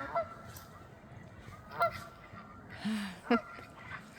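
Waterfowl giving about three short, sharp honks, a second or more apart; the last two are the loudest.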